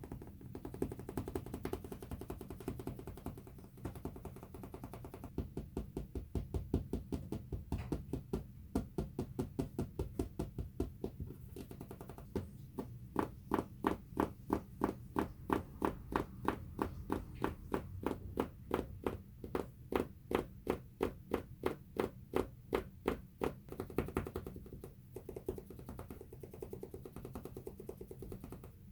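Fingers tapping on the floor in a quick, even rhythm of about three taps a second, softer at first and louder from about twelve seconds in.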